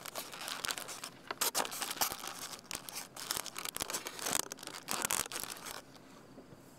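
Close crackling and rustling handling noise, like fingers rubbing on the camera and its microphone. It stops about six seconds in, leaving a faint steady hiss.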